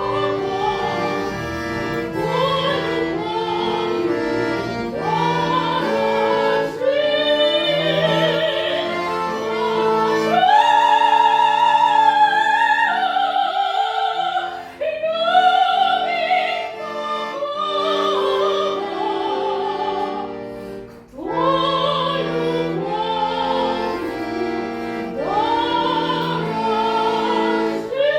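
Classical singing with strong vibrato in a high voice, over instrumental accompaniment, with brief breaths between phrases.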